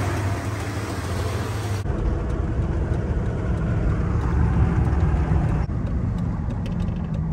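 Dodge Ram pickup truck engine running steadily, then an abrupt change to the engine and road rumble as heard from inside the cab while driving.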